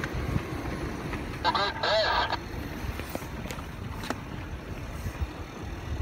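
In-cab sound of a Toyota LandCruiser 100 Series 4WD creeping over a rough sandy track: a steady engine and tyre rumble with knocks and rattles as it rides the bumps. About a second and a half in comes a short, thin-sounding burst of voice, like a call over a two-way radio.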